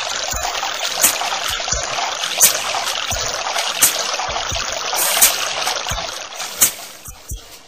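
Outdoor work-site ambience of hand hoes and picks striking dry earth: irregular sharp knocks over a steady rushing noise, fading away near the end.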